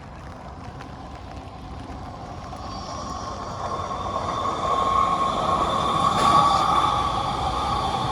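A vehicle approaching: a rumble with a steady high whine that swells over several seconds and is loudest about six seconds in.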